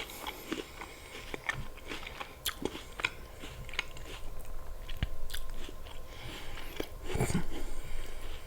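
Close-miked eating sounds: crisp crunching and chewing of raw apple slices with peanut butter, irregular sharp crunches throughout.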